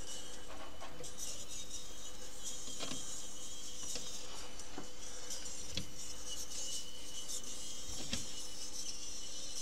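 Jupiter 100 jukebox's record-changing mechanism running: a steady motor hum with mechanical rubbing and scattered clicks every second or two.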